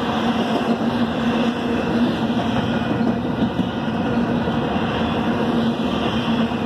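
Double-stack intermodal container train rolling past at steady speed: a continuous rumble and rattle of steel wheels on the rails, with a steady low hum under it.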